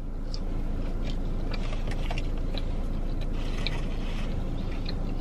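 A steady low hum inside a running car, with faint chewing and small mouth clicks from someone eating a breaded chicken fry.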